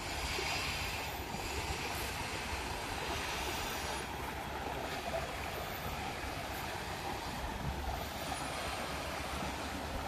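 Steady rushing of flowing river water, with an uneven low rumble underneath.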